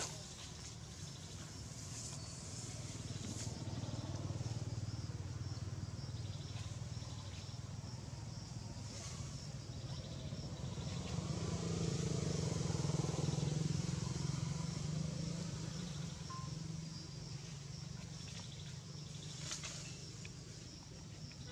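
Low engine hum of passing motor vehicles, swelling twice and loudest a little past the middle before fading, over a steady high hiss, with a couple of sharp clicks.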